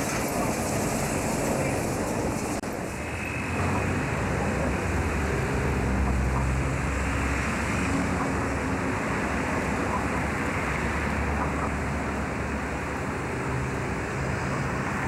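Outdoor street traffic noise picked up by a camcorder microphone: a steady low rumble of vehicles with faint engine tones. The sound dips and changes character about three seconds in.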